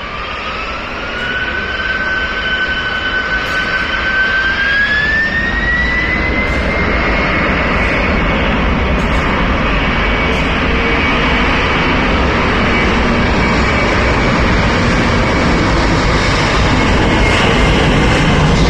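Twin-engine widebody jet airliner's turbofan engines spooling up to takeoff thrust. A whine rises in two steps over the first six seconds and then holds, over a roar that grows steadily louder as the jet begins its takeoff roll.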